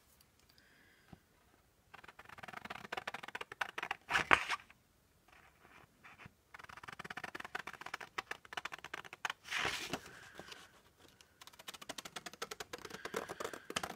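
Paper being handled and rustled in spells of fine, dense crackling, with a louder scrape about four seconds in and another about nine and a half seconds in.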